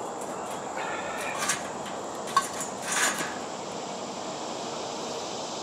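Concrete blocks being handled and set in place: a few short scrapes and a sharp clink of block on block.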